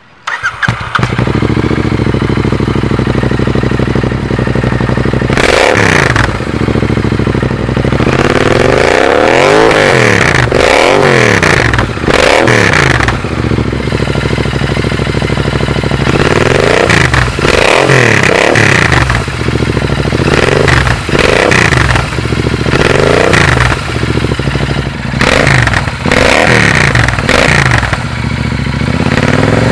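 Royal Enfield Interceptor 650's parallel-twin engine running through a pair of AEW 101 aftermarket slip-on silencers, idling and then revved in a long series of short throttle blips from about five seconds in, each rising in pitch and falling back to idle.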